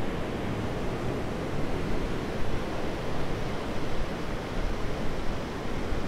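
Steady wash of surf breaking on a sandy beach, with wind on the microphone.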